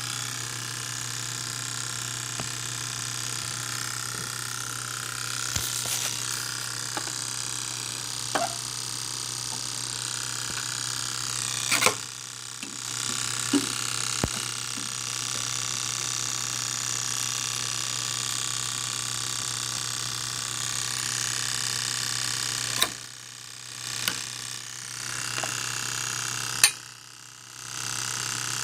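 Steady noise with scattered small clicks from the engine bay of an E70 BMW X5 M's S63 twin-turbo V8 after hard driving and shutdown, on the passenger side where it can be felt through the intercooler. The owner wonders whether an injector is still firing, and the usual electric cooling fan is not running. A few sharper clicks stand out about twelve, twenty-three and twenty-seven seconds in.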